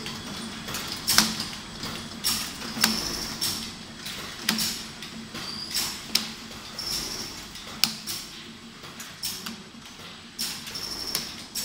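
Automatic container filling and capping machine running: a steady motor hum under repeated sharp knocks and short hisses, about once every second or so, as plastic jars are filled and capped on the conveyor.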